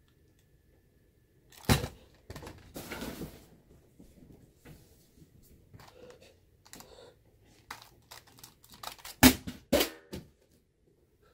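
A man sobbing in distress: sharp gasping breaths and strained, broken cries, with the loudest cries near the end.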